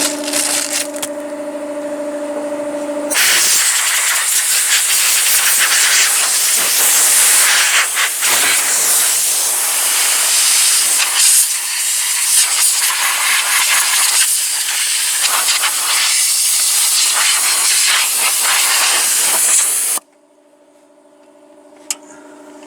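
A loud, steady hiss that cuts in sharply about three seconds in and stops abruptly near the end, with a steady low hum before and after it.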